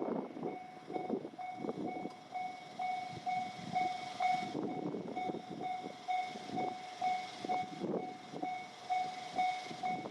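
Japanese level-crossing warning bell ringing, an electronic two-tone beep repeating about twice a second, while a train clatters over the crossing's rail joints. The bell cuts off near the end.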